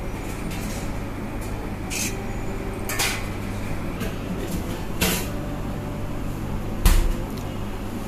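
Stainless steel pan lid knocking and clinking four times as it is handled and lifted off a covered appam pan, the loudest knock about seven seconds in, over a steady low hum.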